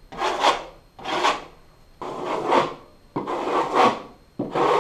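Metal drywall knife scraping across a wet spray-textured drywall patch in repeated strokes, about one a second, five in all, knocking the texture down.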